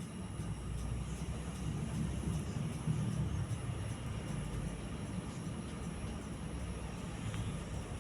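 Celestique/Alaska decorative ceiling fan running: a steady low rumble of motor and moving air, with a faint high hum above it.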